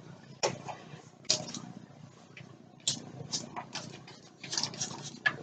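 Hand trigger spray bottle spritzing detangler onto hair in a series of short sprays, about eight, unevenly spaced, to saturate it before detangling.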